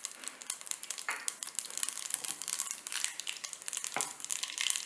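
Mustard seeds and urad dal sizzling and crackling in hot gingelly oil in a small pan, the tempering (tadka) stage, with many quick small pops over a steady hiss.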